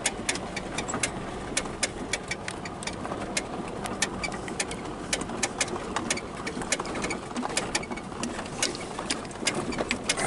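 Vehicle driving on a rough dirt road, heard from inside the cabin: a steady rumble broken by frequent sharp clicks and rattles, several a second, from the bumpy track.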